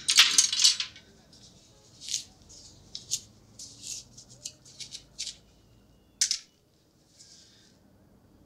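Close rustling and scratching of fingers working through hair, in short bursts. The loudest comes at the very start, with scattered smaller ones after it and one sharp burst about six seconds in.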